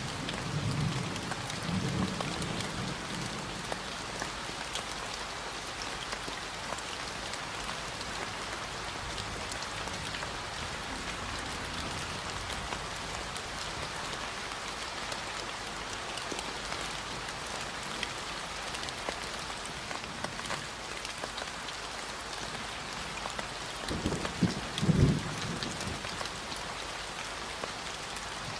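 Steady rain falling, with low rumbles of thunder in the first couple of seconds and again near the end.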